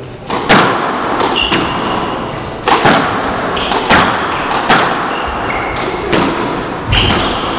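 Squash rally: the ball cracking off rackets and the front wall in quick pairs about once a second, each hit ringing in the court, with short high squeaks of court shoes on the wooden floor between the shots.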